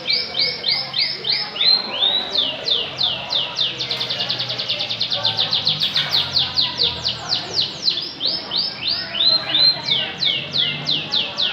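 Canary singing a continuous song made of rapid series of repeated down-slurred whistled notes, the phrases changing speed, with a very fast run of notes about halfway through.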